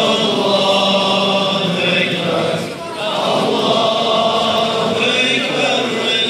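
Large crowd of men chanting in unison, in two long phrases with a short break between them a little under three seconds in.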